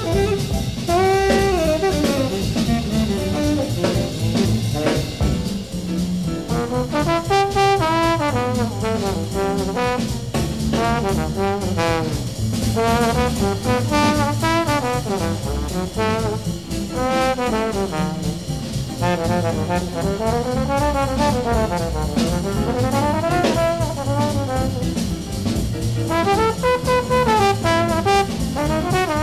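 Small-group jazz recording from 1956: a valve trombone plays a solo line over bass and drums.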